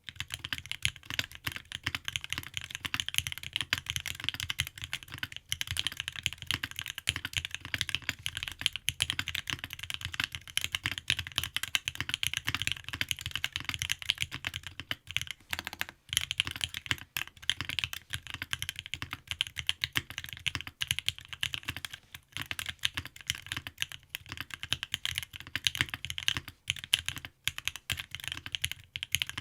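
Fast, continuous typing on a Bakeneko 65 mechanical keyboard with a brass plate, lubed and filmed Durock Alpaca linear switches and GMK keycaps: a dense run of key clacks with deep bottom-out thuds, broken by a few short pauses.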